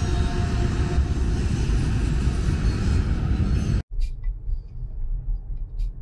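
Freight train rumbling past on the tracks. About four seconds in it cuts off suddenly to the quieter, steady low road noise inside a moving car.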